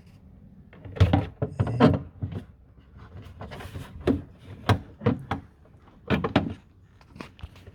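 Irregular knocks and clacks of trim parts being handled and fitted inside a Mitsubishi Pajero Dakar's tailgate, about a dozen separate hits.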